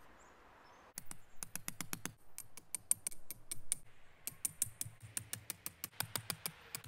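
Rapid runs of sharp clicks and crunches in packed snow as metal tent stakes are pushed and tapped into the ground. The runs start about a second in and come fastest and most evenly near the end.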